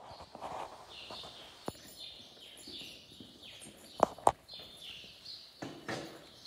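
Small birds chirping over and over, short falling chirps, with a few sharp knocks and clicks from the phone and the saddle gear being handled, the loudest two in quick succession about four seconds in.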